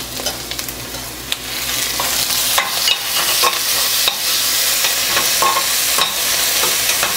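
Onions and freshly added chopped tomatoes sizzling in hot oil in a stainless steel kadai, stirred with a spatula that scrapes and taps against the pan. The sizzle grows louder about two seconds in.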